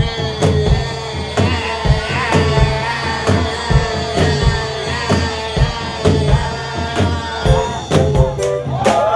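Live band playing an R&B/funk groove: a steady drum beat, a bass line and sustained chords, with no lead vocal yet. A voice joins near the end.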